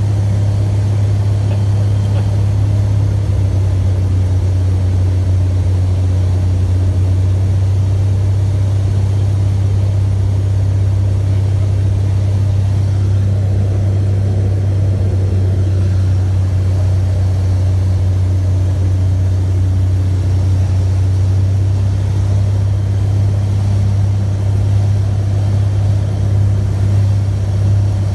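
Cessna FR172E Reims Rocket's Continental IO-360 engine and propeller droning steadily in flight, heard inside the cockpit: a loud, even low hum with little change in pitch.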